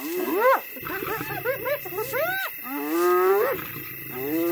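A pack of spotted hyenas calling over one another as they mob a lone lioness: a rapid run of short arched yelps and rising whoops, with a longer rising call about three seconds in.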